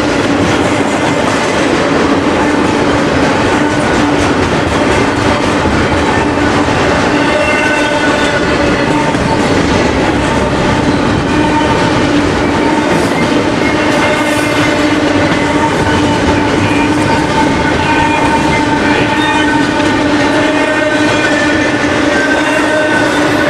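Double-stack intermodal freight train of container-laden well cars rolling past at track speed: a continuous loud rush and rumble of steel wheels on rail, with steady whining tones running through it.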